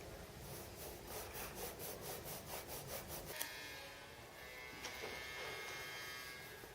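Gold-leaf transfer paper being rubbed down onto the sized dial numerals, a quick, even run of soft brushing strokes, about five a second, lasting about three seconds. Faint held tones follow for the rest of the time.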